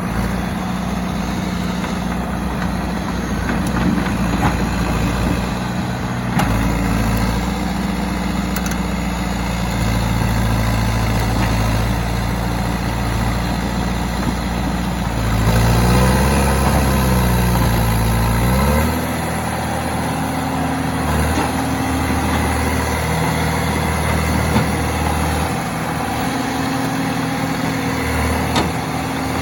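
John Deere 450C loader backhoe's diesel engine running steadily. The low rumble grows heavier about six seconds in. Past the middle the engine note wavers up and down for a couple of seconds, then the deepest rumble drops away and the engine carries on running.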